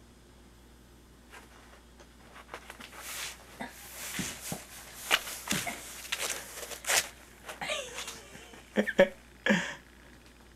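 A cat shifting around inside a small cardboard box: a run of rustles, crackles and scrapes that starts about a second and a half in and grows busier and louder, with the loudest scrapes near the end.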